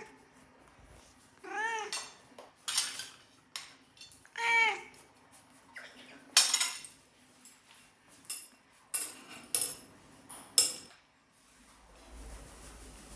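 A parrot gives two short calls that rise and fall in pitch, about three seconds apart, among sharp clinks and taps of a spoon knocking against a dish.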